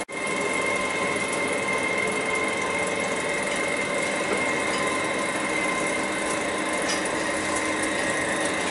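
Standing Class 91 electric locomotive, its onboard equipment running with a steady hum and a thin high whine on top.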